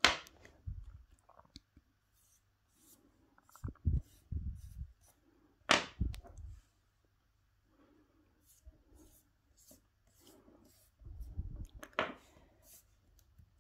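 Soft pastel sticks knocked down onto a wooden tabletop three times: at the start, about six seconds in and about twelve seconds in. Between the knocks comes faint rubbing as the pastel is worked over a foam leaf.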